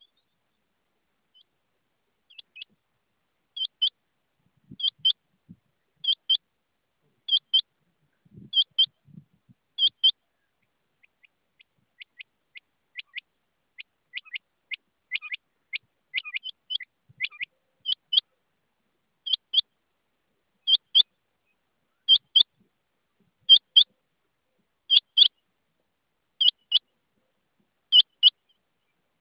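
Rain quail calling: short, high double notes repeated about every second and a half, breaking into a quicker run of single notes in the middle before the paired notes resume.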